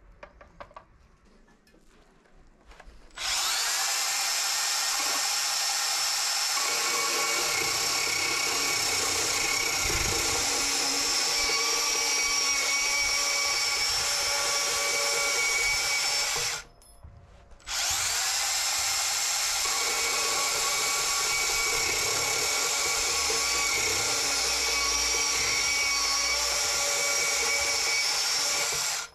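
Makita DPB184 18V brushless cordless band saw running and cutting through square steel tubing: a steady high whine starts about three seconds in. It stops for about a second just past halfway, then runs steadily again until just before the end.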